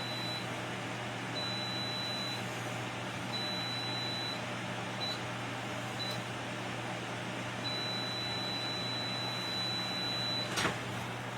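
A steady electrical hum with a thin high whine that comes and goes every second or two, and one sharp click near the end.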